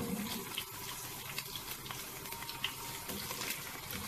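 Diced chicken sizzling steadily in a little oil in a nonstick pan over a high gas flame, its juices cooked off, while a wooden spatula stirs it with faint scrapes and ticks.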